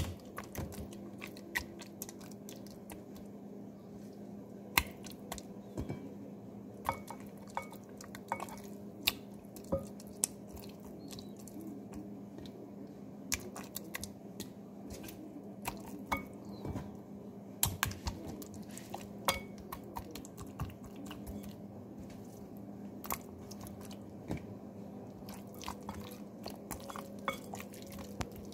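Hands massaging lamb chops in a kiwi marinade in a stainless steel bowl: irregular wet squelches and clicks, with now and then a sharper tap of the meat against the metal bowl.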